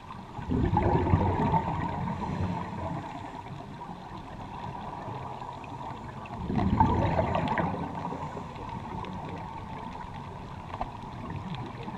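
Diver's exhaled bubbles gurgling past an underwater camera, in two bursts about six seconds apart, over a steady muffled underwater hiss.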